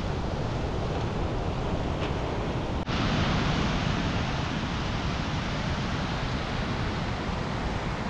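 Whitewater rapids on a small river rushing steadily. About three seconds in the sound cuts out for an instant and comes back brighter and a little louder.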